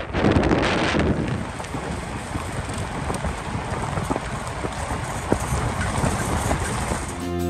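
Wind buffeting the microphone of a camera held out the window of a moving vehicle, then a steady hiss of tyres rolling on a gravel road with a few sharp ticks from loose stones.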